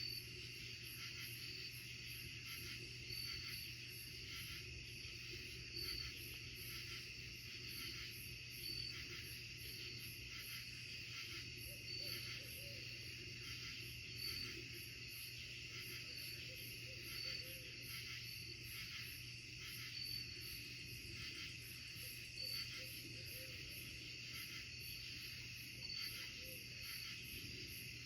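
Night chorus of insects in the woods: a dense, steady, pulsing high trill, with one short, sharper high chirp repeating about every two seconds.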